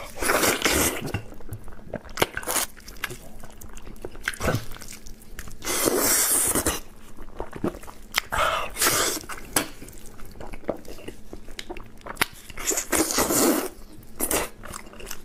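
A person eating braised pork knuckle close to the microphone: wet chewing and smacking clicks throughout, broken by about four short breathy bursts.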